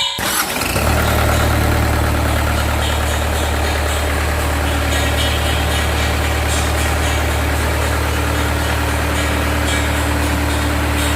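Reconditioned Mitsubishi Fuso PS100 diesel engine, rigged to drive a shrimp-pond aerator, running steadily at an even speed. The sound cuts in abruptly and holds unchanged throughout.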